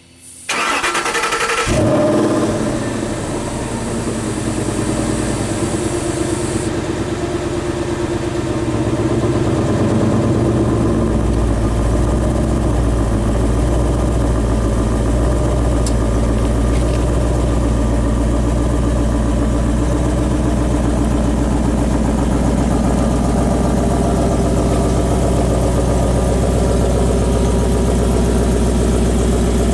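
2013 Ford Mustang Boss 302's 5.0-litre V8 starting, catching after a brief crank with a flare of revs about two seconds in, then idling steadily through its exhaust, settling into an even, deep idle after about ten seconds.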